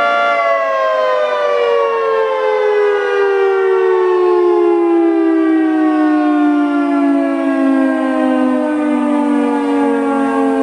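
Federal Signal 3T22 outdoor warning siren, its tones held steady for a moment and then gliding slowly and continuously down in pitch as the siren winds down.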